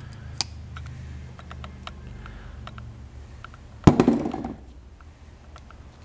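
Small metallic clicks and ticks of pliers working the crimp tabs of a spade terminal onto a wire, over a steady low hum; one louder knock comes about four seconds in.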